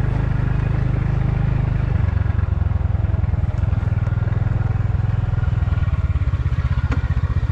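Motorcycle engine running at low speed as the bike rolls slowly on a dirt track: a steady, low pulsing sound that grows stronger about two seconds in.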